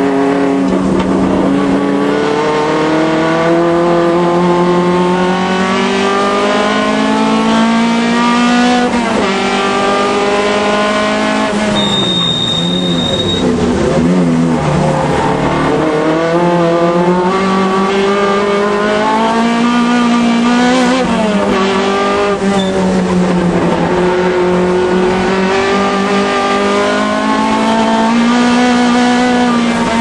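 Alfa Romeo race car's engine at racing speed, revving up through the gears with the pitch dropping sharply at each change. Around the middle it falls and wavers through a spell of braking and downshifts, then climbs again.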